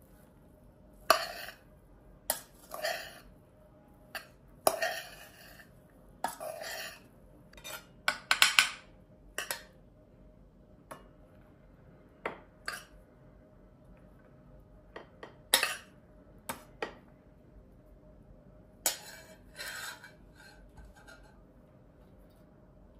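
Metal spoon scraping and clinking against a stainless steel pot and a plate as cooked buckwheat is scooped out and spread. The knocks and short scrapes come irregularly, most densely in the first half.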